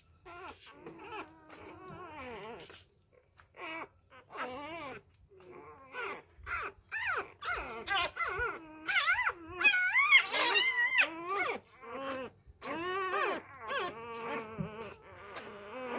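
Newborn Labrador puppies whimpering and crying in many short, high calls that rise and fall in pitch. They are loudest about ten seconds in.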